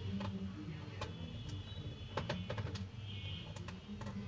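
Irregular light clicks and taps of a screwdriver and small screws on the plastic underside of a Samsung NP300E5V laptop while its back screws are being removed, over a low background hum.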